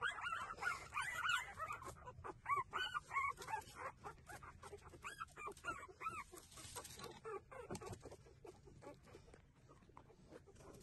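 Newborn puppies squeaking and whimpering as they nurse: rapid short high squeaks, several a second, thinning out and fading in the last few seconds.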